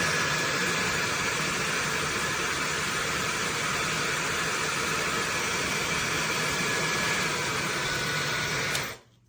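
High-speed brushless hair dryer running with a steady rush of air and a faint whine, switched off and stopping abruptly near the end.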